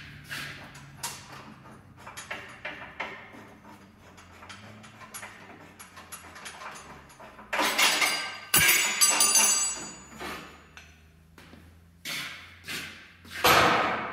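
Metal clanks, knocks and clatter from hand tools and suspension parts being handled at a Jeep Wrangler JK's rear axle. It is mostly scattered light knocks, with louder clattering bursts about halfway through and again near the end, over a faint steady hum.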